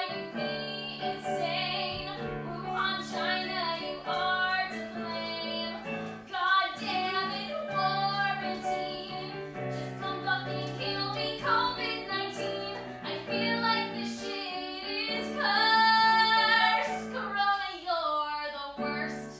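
Music: a high female voice singing long, held notes over a sustained backing of low chords, stopping near the end.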